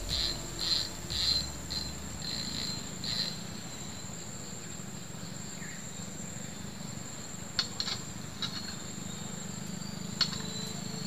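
Steady high-pitched insect trill, with a run of short chirps about twice a second over the first few seconds and a few sharp clicks later on.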